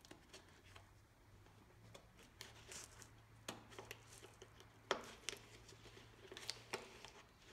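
Faint handling sounds as a rubber spindle boot is worked off an Ammco 4000-series brake lathe spindle with pliers: a few light clicks and short rubbing noises, the sharpest click about five seconds in, over a faint low hum.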